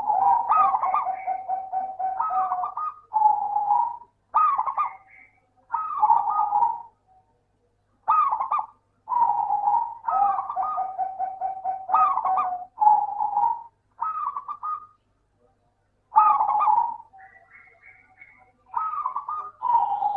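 Zebra dove (perkutut) singing: about ten repeated cooing phrases of quick trilled notes, separated by short pauses.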